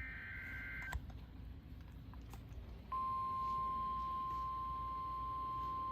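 The tail of an EAS SAME data burst, a buzzy two-tone digital warble, cuts off with a click about a second in. After a couple of faint clicks, the NOAA Weather Radio 1050 Hz warning alert tone starts about three seconds in: one steady high tone, the signal that a warning is about to be broadcast.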